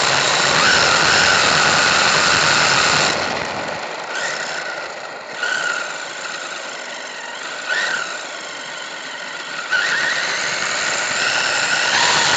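Brushless motor of a WLToys 124007 RC buggy whining under throttle, with its tyres rushing over artificial turf. It runs loud for about three seconds and then eases off. Three short throttle blips rise in whine about five, eight and ten seconds in, before it goes back to full throttle near the end.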